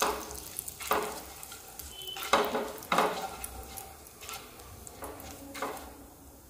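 Asafoetida sizzling in hot ghee in a nonstick pot while a wooden spatula stirs and scrapes the pan bottom, about seven strokes. The sizzle grows fainter toward the end.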